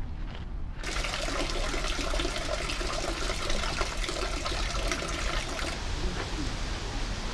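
Thin stream of water falling from mossy rocks into a stone basin, splashing and trickling. It starts about a second in and turns softer and duller near the end.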